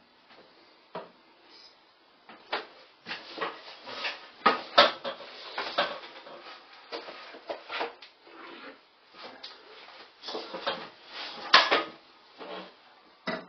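Irregular clicks, clinks and knocks of hand tools and small fastening hardware being handled. There are many sharp taps spaced unevenly, the loudest about a third of the way in and near the end.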